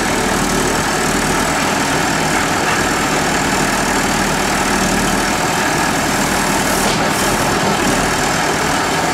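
Backhoe loader's diesel engine running loud and steady as its arm digs earth.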